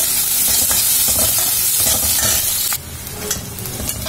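Chopped onions sizzling as they fry in oil in an aluminium kadhai, stirred and scraped with a spatula. The sizzle drops suddenly about three seconds in.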